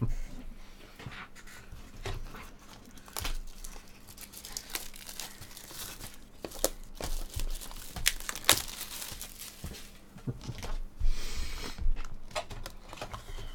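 Foil trading-card pack wrappers being torn open and crumpled, with the cards handled: irregular crinkles and clicks, and a longer tearing rasp near the end.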